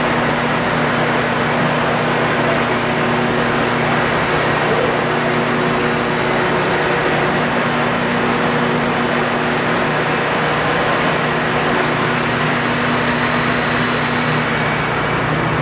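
Forrest Model 480 horizontal bandsaw running steadily while its blade slices a sheet off the bottom of a foam block: a continuous even whirring with a low hum under it that drops out briefly a few times.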